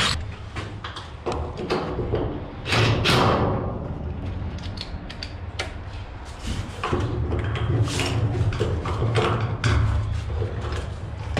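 DeWalt 20V cordless drill driving a self-threading screw through a bolt-on D-ring into a steel shipping-container wall: a short burst of the drill, then clicks and knocks of the tool and fastener.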